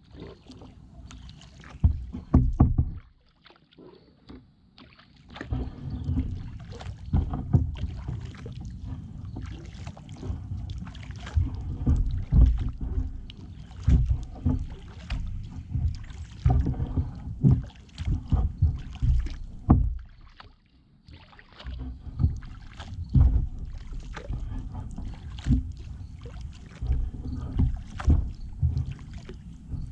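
Kayak being paddled: repeated paddle strokes in the water with frequent sharp knocks, pausing briefly twice.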